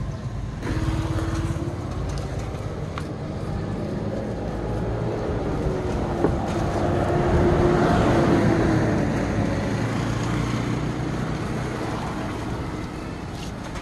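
Road traffic: a motor vehicle's engine runs, grows louder to a peak about eight seconds in, then fades as it passes by.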